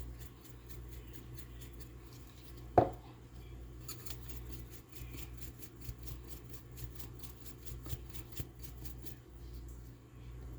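Salt and pepper added to raw chicken: a single sharp knock a few seconds in, then a long run of light, rapid clicks and rattles from the seasoning container.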